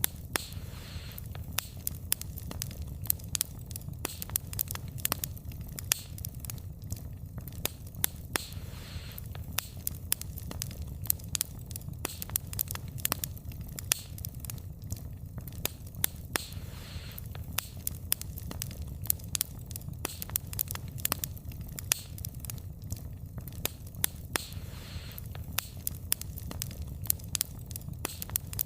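Wood fire crackling: a low steady rumble of flames with frequent sharp, irregular pops and snaps from burning logs, and now and then a brief hiss.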